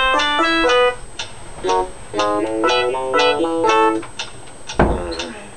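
Plucked-string music, a banjo-like melody of quick short notes that breaks off briefly about a second in and stops about four seconds in. Near the end comes a single loud thump.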